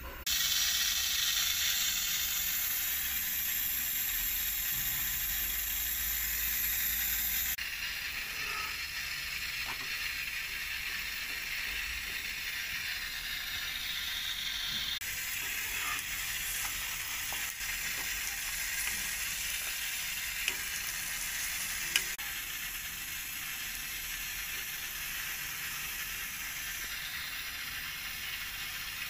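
Steady sizzling hiss of a radish-stuffed paratha cooking on a hot iron tawa, with two sharp clicks about two-thirds of the way through.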